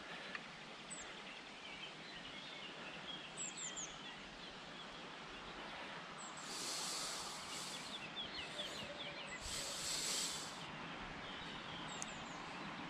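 Small birds chirping in short, scattered calls over a steady outdoor background hiss, with two louder high hissing bursts of about a second each around the middle.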